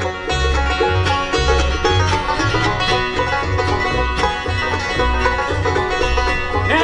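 Live bluegrass band playing an instrumental passage: five-string banjo, dobro, mandolin, acoustic guitar and upright bass, the bass plucking a steady beat underneath.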